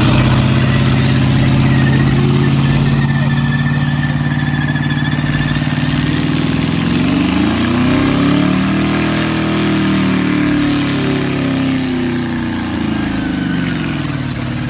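Pickup truck's engine held at high revs while it slides in circles with its rear tyres spinning and smoking. The pitch holds steady at first, then rises and falls in slow swells from about halfway through as the truck swings around.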